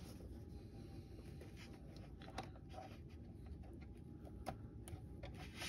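Faint, scattered light clicks and taps as plastic model-car suspension parts and a small clamp are handled and fitted.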